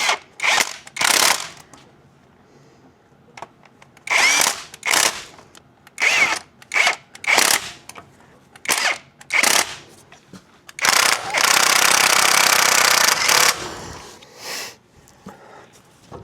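Power tool, most likely an impact wrench, run in about ten short bursts and then one longer steady run of a couple of seconds near the end, running down a nut on the front ball joint.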